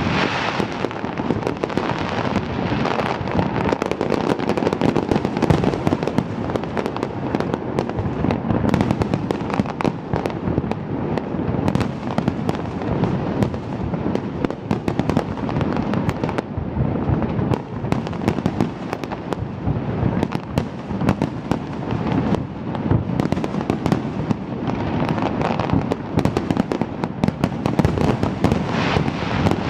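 Fireworks display: a dense, continuous barrage of shell bursts and crackling, many bangs a second over a constant rumble.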